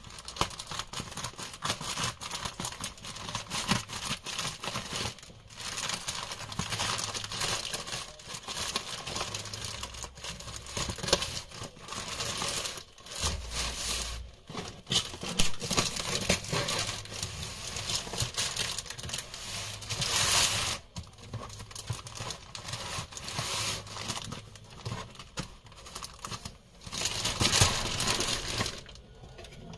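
A plastic courier mailer bag being crinkled and torn open by hand: an irregular run of crackling and ripping that swells louder about two thirds of the way through and again near the end.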